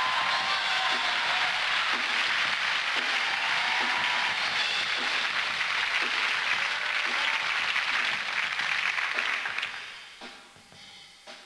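Large theatre audience applauding after a big musical finish, a dense steady wash of clapping that dies away about ten seconds in.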